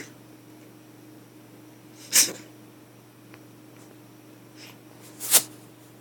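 A pet wheezing in short, sharp, sneeze-like bursts of breath: two loud ones about two and five seconds in, with fainter ones at the start and just before the second loud one.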